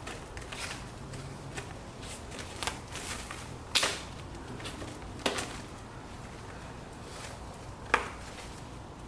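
Plastic clips of a lawnmower grass-catcher bag being snapped onto its frame rod: a few sharp clicks and snaps, the loudest about four, five and eight seconds in, with quieter handling sounds between.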